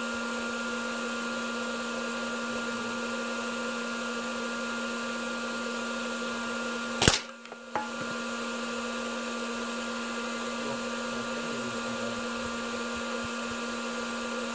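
Hair dryer running steadily with a constant whine and hum. About seven seconds in comes one sharp crack of a CO2 air gun shot, followed closely by a smaller click.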